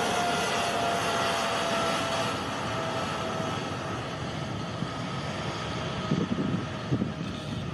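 Boeing 777 jet engines at takeoff thrust during the takeoff roll on a wet runway: a steady jet roar with a whining fan tone that slowly falls in pitch as the aircraft moves away. The sound fades gradually, with uneven low rumbles near the end.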